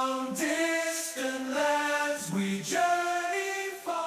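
Intro music of chanting voices, a choir-like a cappella chant of held notes that step to new pitches every half second or so.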